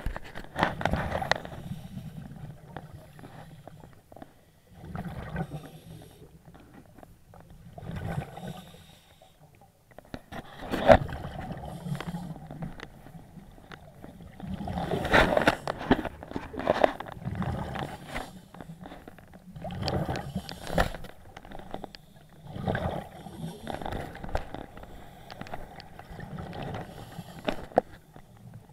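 Scuba diver breathing through a regulator underwater: a gurgling burst of exhaled bubbles every three to five seconds, with a sharp knock about eleven seconds in.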